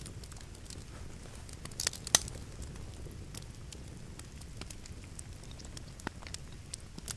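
Small fire crackling, with scattered pops over a low rumbling room tone. A couple of sharper, louder cracks come about two seconds in.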